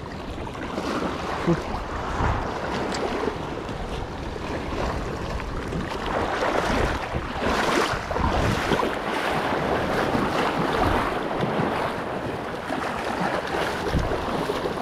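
Wind buffeting the microphone over the wash of the sea, a steady rushing that swells and eases, fuller for a few seconds in the middle.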